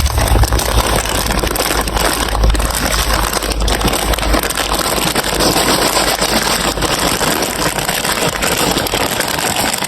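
Many marbles rolling and clattering down a plastic building-block marble run, a dense continuous rattle.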